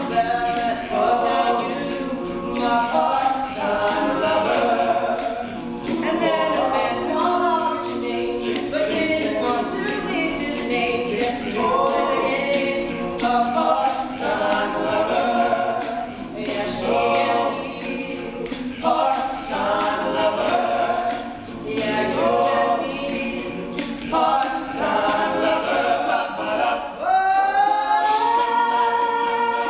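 All-male a cappella group singing in harmony behind a male lead soloist, with vocal percussion keeping a steady beat. About 27 seconds in, the backing voices slide up together into a held chord.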